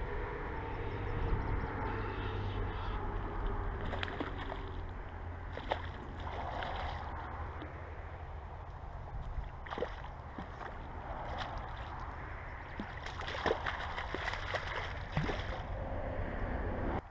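A hooked brown trout splashing in shallow water as it is reeled in, with sharp splashes here and there and a cluster of them near the end. Under it runs a steady low rumble of wind on the microphone.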